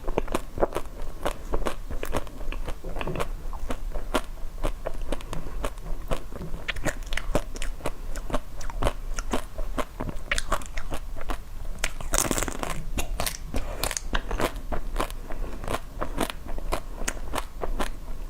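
Close-miked biting and chewing of hard, crunchy food: a steady run of crisp, irregular crunches and crackles.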